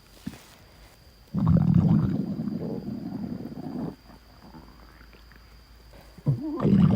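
Human stomach growling: a long low rumble of about two and a half seconds that starts a little over a second in, then a shorter rumble with a wavering pitch near the end.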